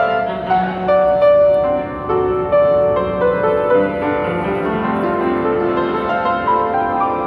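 Upright piano played with both hands: a melody of struck notes over held chords, without a pause.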